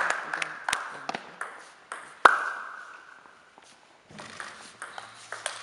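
Table tennis ball clicking between points: scattered light bounces, one loud sharp click about two seconds in that rings on in the hall's echo, then more small bounces as a serve is readied near the end.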